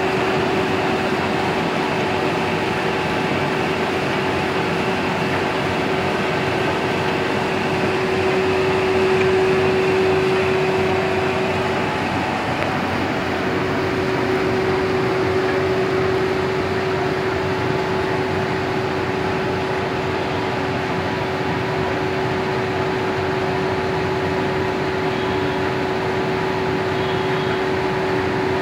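Four-colour flexographic printing press running steadily as it prints woven sack fabric: a constant machine rush and hum with one steady mid-pitched drone tone through it.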